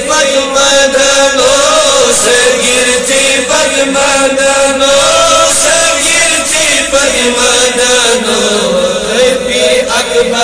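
Men's voices chanting a Kashmiri naat together, a continuous melody of long held notes that glide up and down.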